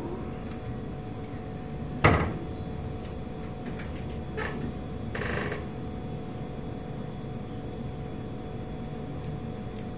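Someone handling kitchen cupboards: one sharp knock about two seconds in, like a cupboard door shutting, then a few lighter knocks and a short clatter of kitchen items, over a steady low hum.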